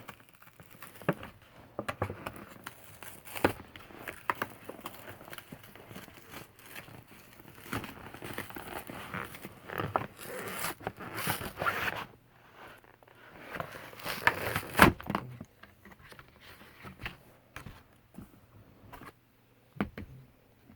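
A cardboard box being worked open by hand: irregular scraping, tearing and crinkling with scattered clicks. The loudest burst comes about two-thirds of the way in, followed by only light, sparse handling clicks.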